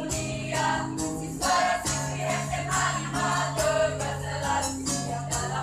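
A mixed choir singing a song in harmony, backed by acoustic guitar, with a jingling percussion instrument shaken on the beat.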